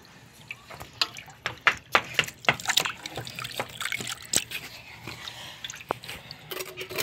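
Hands stirring and rubbing a basinful of small fish in water: irregular splashing and sloshing with wet slaps, busiest about one to three seconds in.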